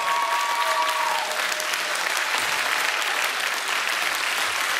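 Audience applauding, a dense steady clapping. The last held notes of the dance music fade out about a second and a half in.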